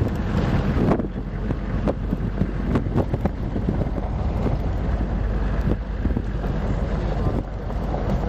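Wind buffeting the camera's microphone, over a steady low rumble, with a few brief knocks in the first three seconds.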